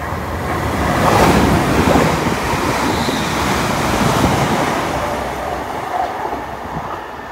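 ScotRail Class 380 electric multiple unit going past at speed: a loud rush of wheel, rail and air noise that swells to its peak about a second in, holds, then slowly fades, with wind on the microphone.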